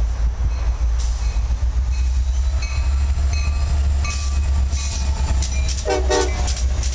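Norfolk Southern diesel freight locomotives passing close by, with a steady low engine rumble and wheel noise on the rails. A burst of sharp clicks and a brief squeal come near the end as the lead unit goes past.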